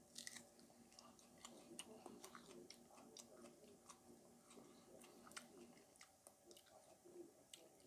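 Near silence with faint, scattered small clicks of mouth sounds as a chili pepper is chewed and its heat is taken in.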